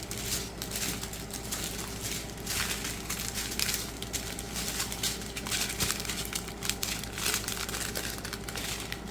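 Small plastic bags of diamond-painting drills being handled and crinkling, with a dense run of irregular crackles.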